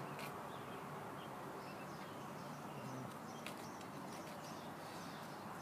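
Faint scratching of coarse sandpaper rubbed by hand against the cut stubs of a thin bonsai branch, a few short strokes over a steady background hiss.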